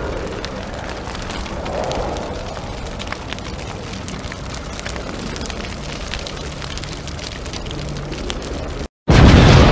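A steady rumbling, crackling noise with many small sharp crackles over a deep rumble. Near the end it cuts out to silence for a moment, then comes back louder.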